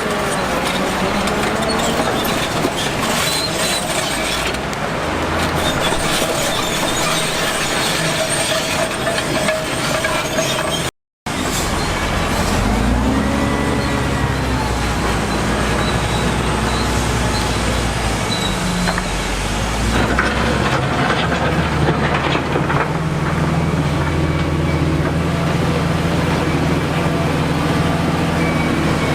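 Heavy diesel construction machinery working: dense mechanical noise with a thin, steady high squeal for the first ten seconds, then, after a brief break in the sound, a diesel engine revving up and down and settling to a steady low drone.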